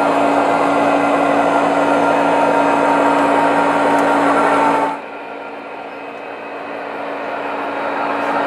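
O-gauge model diesel locomotive running on three-rail track, a steady mechanical hum with a few held tones. About five seconds in it drops sharply, then grows louder again as the locomotive comes closer.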